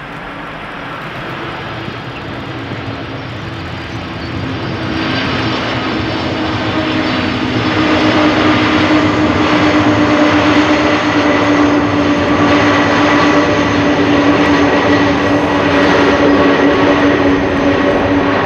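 Boeing 747-400 Freighter's four jet engines running steadily during its roll on the runway, a broad roar with a steady whine on top. It grows louder from about four seconds in to about eight seconds in, then holds.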